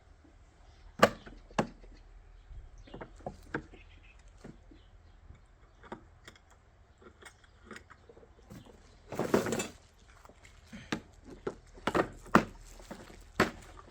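Parts of an electric lawn mower being handled during unboxing and assembly: irregular clicks and knocks, with a longer scraping rustle about nine seconds in.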